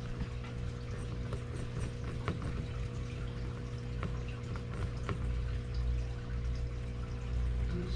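Rabbit nibbling at a sisal chew toy hung on wire pen bars: irregular small clicks and ticks over a steady low hum.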